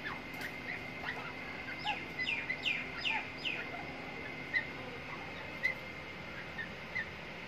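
Francolin chicks peeping: a run of about five quick, high, falling peeps a couple of seconds in, then single short chirps every second or so, over a faint steady high hum.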